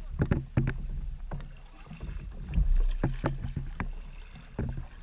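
Paddling a sit-on-top fishing kayak with a double-bladed paddle: blade strokes in the water with many short, sharp clicks and knocks scattered throughout, over a low steady rumble.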